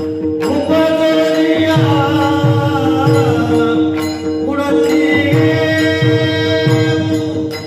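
Warkari kirtan: men's voices singing a devotional tune together over a steady held drone, with mridang (pakhawaj) strokes about every 0.6 s. The singing breaks off briefly about four seconds in, then resumes.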